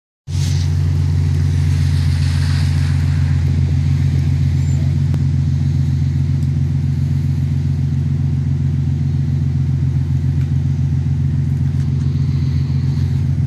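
Nissan 370Z Nismo's 3.7-litre V6 idling steadily through a freshly installed Fast Intentions exhaust with test pipes in place of the catalytic converters.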